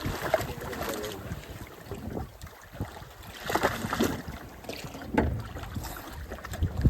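Water slapping and sloshing against the hull of a small fishing boat at sea, in irregular surges every second or two, with wind on the microphone.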